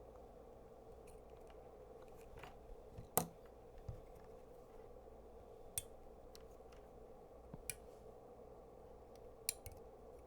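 A few sharp, scattered clicks and taps of small metal clips and tools being handled on the workbench, the loudest about three seconds in, over a steady faint hum.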